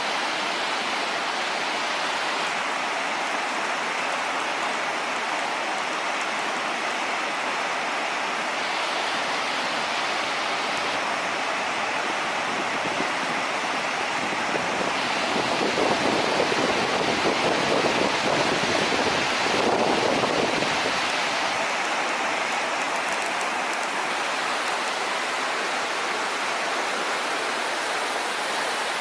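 The Eas Urchaidh waterfall on the River Orchy: white water rushing in a steady, dense wash of noise. It swells louder for about six seconds just past the middle.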